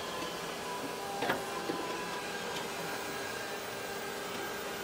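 Steady hum of factory machinery, with a few faint steady tones over a noisy hiss, and one sharp metallic knock about a second in.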